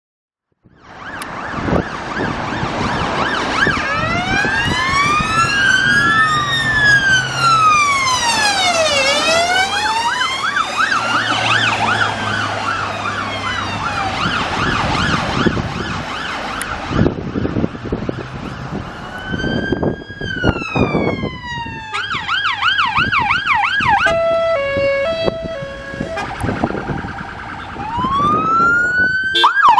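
Several UK emergency-vehicle sirens sounding, overlapping and following one another, starting about half a second in. Slow rising-and-falling wails cross each other, then give way to fast yelps, and later a stepped two-tone hi-lo is heard.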